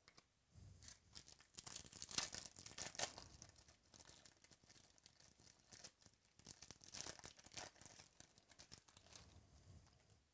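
Foil wrapper of a trading-card pack being torn open and crinkled in the hands: a stretch of crackling, loudest about two to three seconds in and again about seven seconds in.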